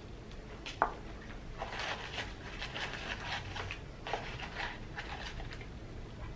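A single sharp knock a little under a second in, then a run of short, irregular rustles and crackles: a paper fry carton being handled while fries are picked out and eaten.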